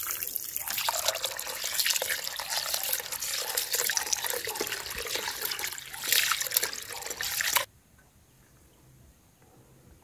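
Water pouring from a hose into a pot of rice and splashing as a hand swishes and rubs the rice to wash it. It is louder and splashier near the end, then cuts off suddenly to near silence.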